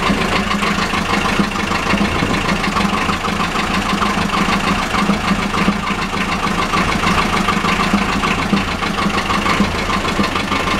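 Marine inboard diesel engine running steadily at idle just after a cold start following winter layup, its glow plugs still held on until it settles.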